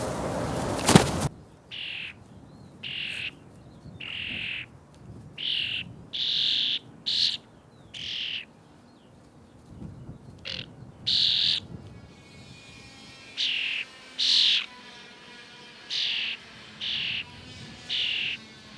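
Starling chicks begging: short, harsh calls repeated about once a second. A steady hiss opens the sound and ends in a sharp knock about a second in.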